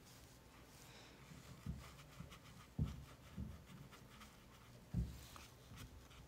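Faint scratching of a paintbrush working on watercolour paper, with a few dull low bumps, the loudest about three and five seconds in.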